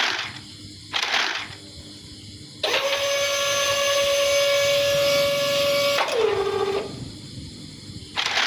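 A small electric motor runs with a steady whine for about three seconds, then winds down in pitch and stops. Short noisy bursts come twice before it and once near the end.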